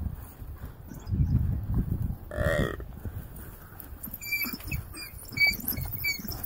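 A gemsbok under attack gives one short bellowing distress call about halfway through, over low scuffling noise. In the second half, African wild dogs make a run of five or six short high-pitched chirps.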